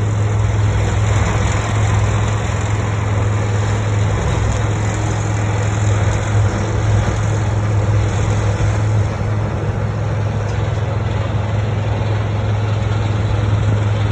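Tractor engine running steadily: a constant low drone with a dense wash of mechanical noise over it.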